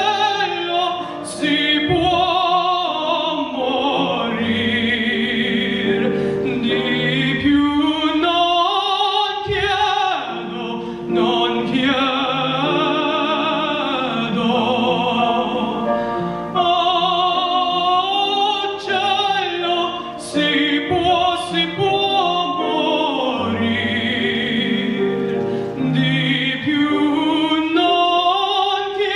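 Operatic singing in Italian, one voice holding long, wavering notes, with music behind it.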